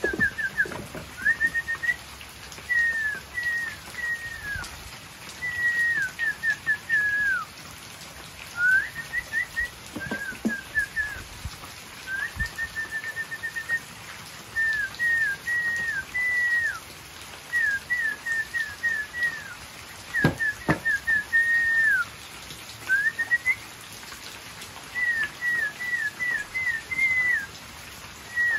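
Whistling: short, clear whistled notes in quick runs of three to six, some falling and some rising in pitch, repeated with brief pauses throughout. A couple of faint low knocks sound under it.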